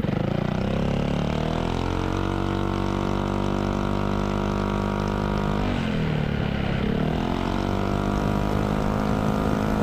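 Yamaha XMAX 250 scooter's single-cylinder engine running through a Vilan MV1 aftermarket exhaust fitted with a dB killer, accelerating on the road. The engine note rises over the first two seconds and holds, dips and climbs again about six seconds in, then rises once more.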